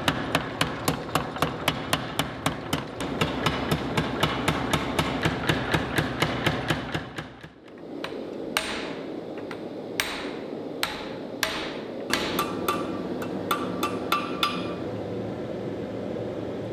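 Hand hammer blows, from a cross-peen hammer, on hot twisted Damascus steel over an anvil: a fast, even run of about four blows a second for roughly seven seconds, then after a short pause slower, spaced blows, over a steady background hum.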